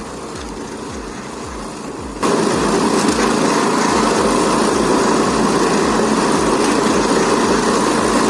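Engine running with a slow, even beat; about two seconds in a much louder steady rushing noise of machinery starts over it and holds.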